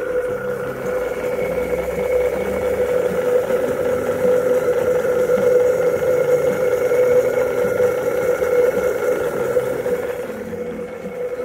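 Model steam launch's boiler plant under steam, giving a steady hum with one strong constant tone. It eases off a little near the end.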